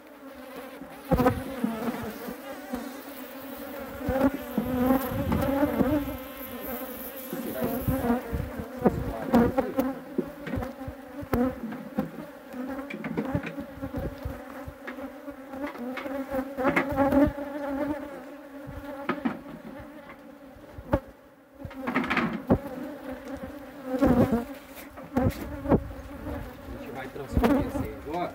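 Honeybees buzzing in a steady drone around the opened hives, with frequent knocks and bumps as the wooden hive boxes and frames are handled.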